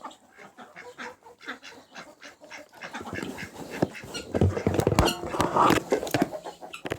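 Domestic ducks quacking amid a run of clicks and knocks, which grow louder and denser about halfway through.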